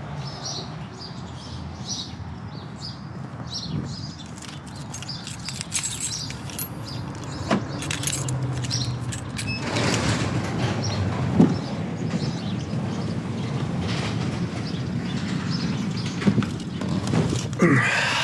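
A vehicle's steady low hum with scattered clicks and knocks throughout.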